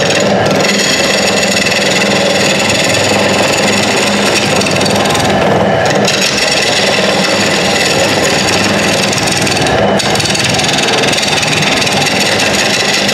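Hollowing cutter of a Carter Hollow Roller hollowing system scraping the inside of a vase blank spinning on a wood lathe: a steady cutting hiss over the lathe's hum. The cutting eases off briefly twice, about five and a half and ten seconds in.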